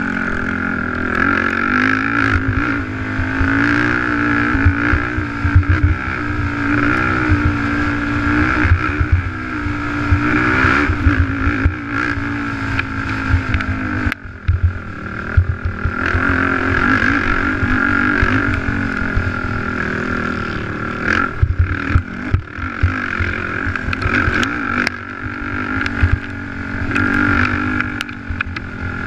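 A sport quad's engine running hard under racing throttle, heard from a camera mounted on the quad. The engine pitch wavers as the rider works the throttle and dips sharply about halfway through before pulling again. Short low knocks from the rough track run through it.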